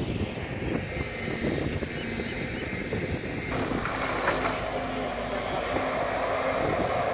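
Wind noise on the microphone, then, from about three and a half seconds in, a JCB tracked excavator's diesel engine running steadily while it digs and swings its bucket.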